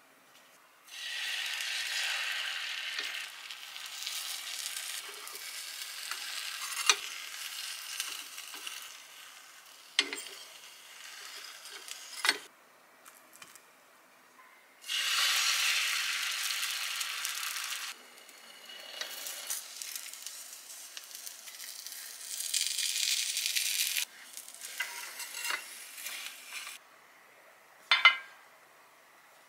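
Beaten egg sizzling in a small oiled rectangular egg-roll (gyeran-mari) pan, in several stretches that start and stop abruptly. A few sharp clicks break in, the loudest near the end.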